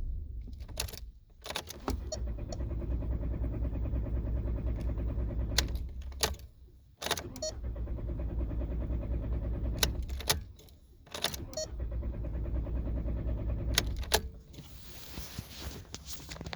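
A 2004 VW New Beetle's engine being turned over on the starter three times, each try a steady rhythmic churn of about three to four seconds, with sharp clicks from the key and relays as each one begins and ends. The engine does not stay running, a no-start that the uploader's tags link to the immobilizer.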